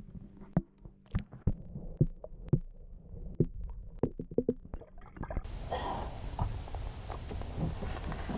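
A string of irregular light knocks and taps, then, about five seconds in, a steady low rumbling noise with a hiss takes over.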